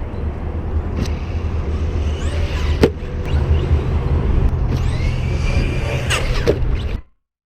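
Arrma Big Rock 3S brushless RC monster truck driving, its motor whining up and down in pitch with the throttle over a steady low rumble. A sharp knock just under three seconds in is the loudest moment, and the sound cuts off abruptly about seven seconds in.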